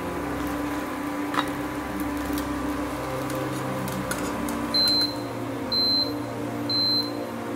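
A steel slotted spoon clinks once against a steel kadai while fried banana-flower fritters are lifted out of the oil, over a steady low hum with a few light clicks. From about five seconds in, a short high electronic beep sounds about once a second, three times.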